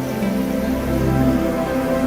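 Background music of soft, held overlapping notes that change about every half second.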